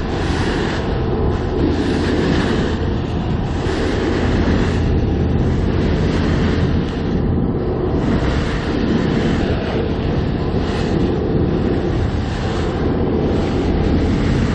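Fishing boat running under engine: a steady low drone under loud rushing wind and water noise, with wind buffeting the microphone.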